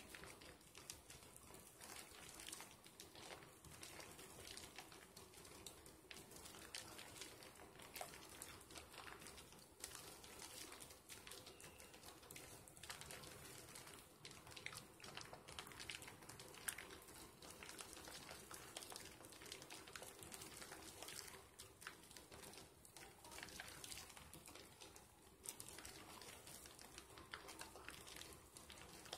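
Faint, wet squishing and crackling of thick soap lather as soap slivers are rubbed and squeezed between wet hands, with many small irregular pops. A faint steady hum sits underneath.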